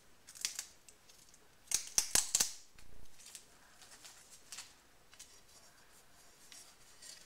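Crackling and crinkling of the plastic backing film being picked at and peeled off 3M double-sided tape, with a cluster of louder, sharper crackles about two seconds in.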